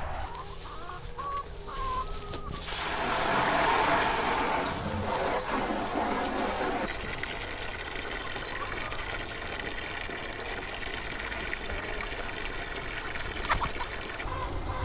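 Water rushing from a garden hose for about four seconds, then shut off abruptly, with hens clucking around it.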